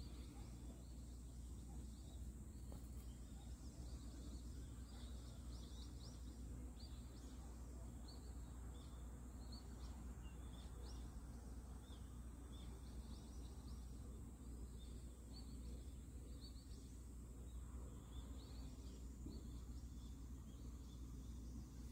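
Faint chirping of small birds, short quick notes at irregular spacing, over a steady low hum.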